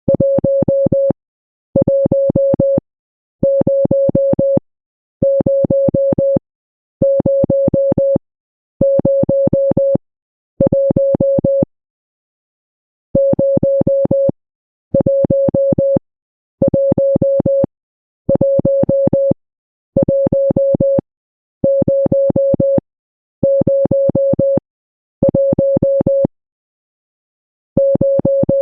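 Electronic Morse code beeps: one steady mid-pitched tone keyed on and off in long tones of about a second each, with short gaps between them. The run breaks twice for a longer pause, after seven tones and again after eight more.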